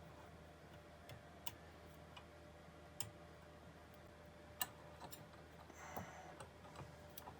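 Faint, irregular light clicks and taps, about ten spread out with a second or so between them, over quiet room tone with a faint steady hum.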